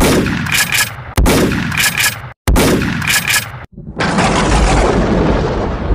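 Edited intro sound effects: three loud cinematic booms, a little over a second apart, each dying away, then a longer rumbling noise lasting about two seconds.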